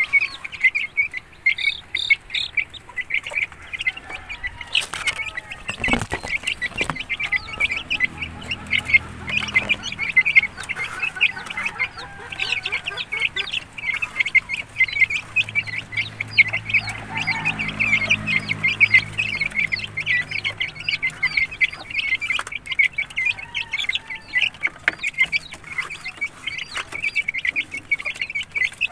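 A flock of young game fowl chicks peeping rapidly and continuously. A few knocks come about five to seven seconds in.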